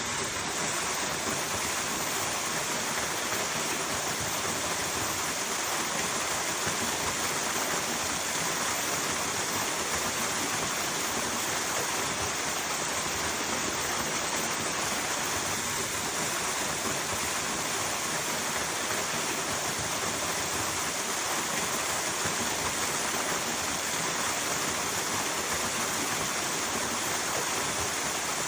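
Running water rushing steadily and evenly, unbroken.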